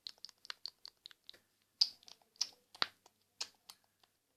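Small plastic toys being handled, giving irregular light clicks and taps on a hard surface, with a few sharper knocks about two and three seconds in.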